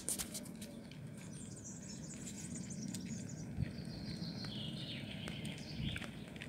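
Faint outdoor background with a steady low hum, high thin chirping in the middle stretch, and scattered light clicks.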